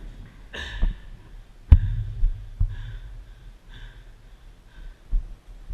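Muffled low thumps and breathing from a player on the move, with one sharp click or knock a little under two seconds in.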